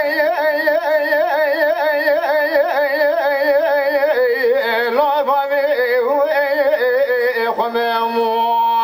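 Kurdish dengbêj singing: one unaccompanied voice sings a heavily ornamented, wavering melodic line, then settles into a long held note near the end.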